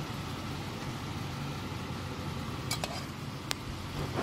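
Chicken pieces sizzling as they fry in oil, cooking off the water they release, under a low steady hum. A metal spatula clicks against the pot a few times in the second half.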